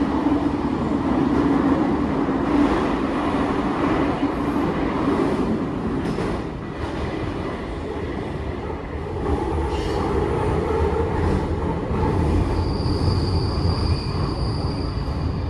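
CAF metro train running through a tunnel, heard from inside the passenger car: a steady rumble of wheels and motors on the track. A thin high wheel squeal rings for a couple of seconds near the end.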